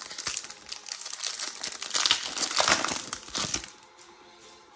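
Foil wrapper of a Pokémon booster pack crinkling and crackling as it is torn open and pulled apart by hand; the crinkling stops about three and a half seconds in.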